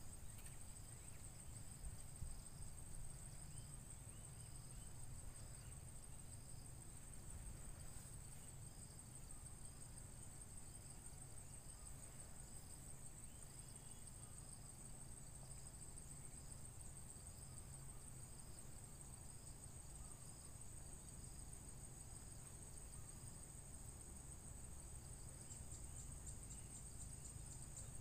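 Insects chirring steadily in a high, even band, with a fainter pulsing call a little lower, over a faint low rumble.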